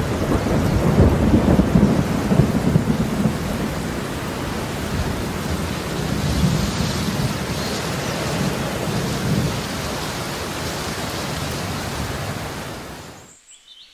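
Heavy rain falling steadily, with rumbling thunder that swells twice, then fades out near the end.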